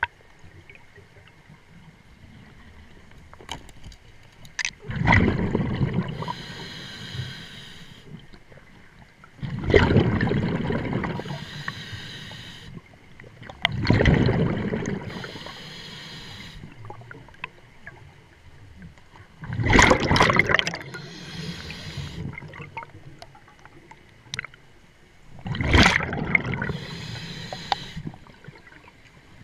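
Scuba diver breathing through a regulator underwater: a hiss on each inhale, then a loud rush of exhaled bubbles, five breaths about five seconds apart.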